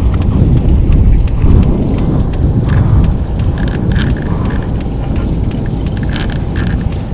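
Heavy wind rumble buffeting the microphone at sea, with scattered light clicks and rattles through it.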